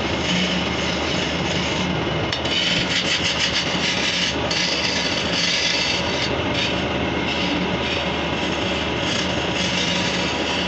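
Wood lathe spinning a wooden spindle while a hand chisel cuts it: a continuous scraping hiss of the cut over a steady low hum. The cut is heaviest from about two to four and a half seconds in.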